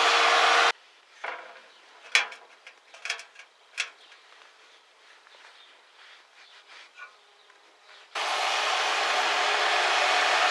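A small power tool's motor running with a steady whir, cutting off abruptly. A few light clicks and knocks of tools being handled follow, then the motor starts up again near the end.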